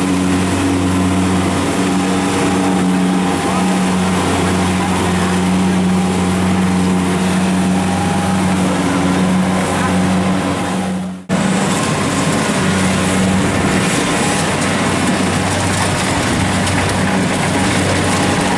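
Kubota rice combine harvester's diesel engine running steadily under load as it cuts and threshes rice, with the threshing machinery adding a rough mechanical noise. The sound drops out sharply for a moment about eleven seconds in, then the same engine noise resumes.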